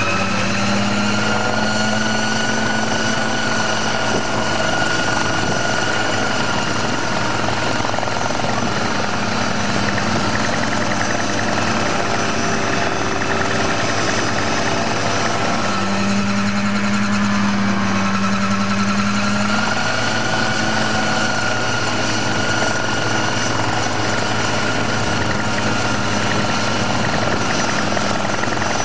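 Homemade single-seat helicopter running on the ground with its rotor turning: a steady, loud engine drone whose pitch climbs slightly in the first couple of seconds and then holds nearly even, with small rises and falls.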